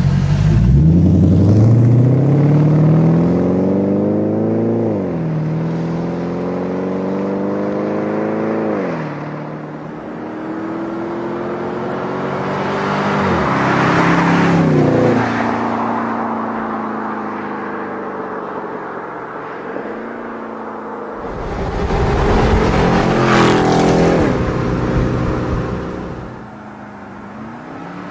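Dodge Challenger SRT8's Hemi V8 through an MBRP performance exhaust, accelerating hard: the engine note climbs and drops back at each upshift, about five, nine and thirteen seconds in. The car then passes close by twice, near the middle and again about two-thirds through, before the sound fades.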